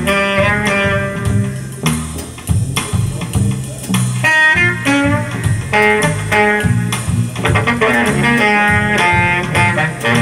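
Guitar-led music with a bass line, played back over Lansche hi-fi loudspeakers driven by Mola Mola amplifiers.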